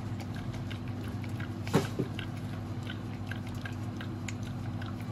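A dog lapping milk from a stainless-steel bowl: a run of quick, irregular wet laps, with one louder short sound about two seconds in. A steady low hum runs underneath.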